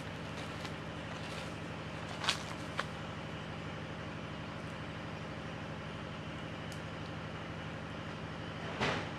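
A steady low mechanical hum of a running motor, like an idling engine, with a few short sharp clicks over it. The loudest click comes near the end.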